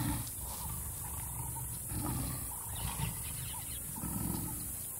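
Lioness growling low on her warthog kill in a few short rumbles about two seconds apart, with faint short repeated high notes in the background.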